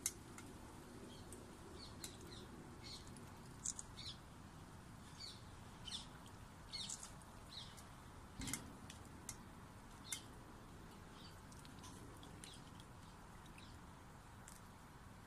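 Sparse, short, high chirps and clicks over a quiet background, mostly in the first two-thirds, with a soft knock about eight and a half seconds in.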